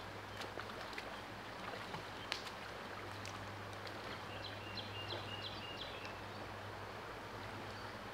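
Steady rush of a shallow, rocky stream riffle, with a low steady hum under it. A few sharp clicks come in the first couple of seconds, and a bird calls five quick high notes about halfway through.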